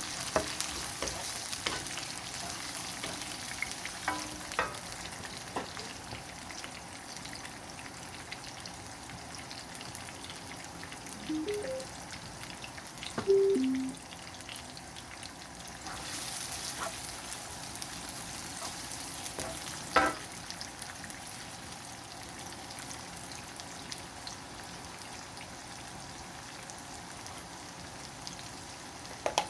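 Chopped onion and garlic sizzling steadily as they sauté in hot oil in a pan, with occasional clicks and a couple of louder knocks from the utensil stirring against the pan.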